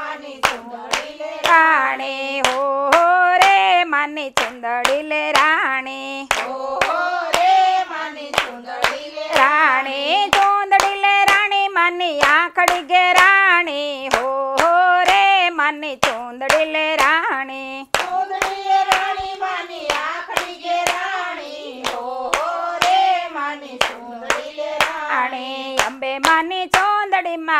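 A group of women singing a Gujarati garba devotional song together, keeping time with steady hand claps about two a second.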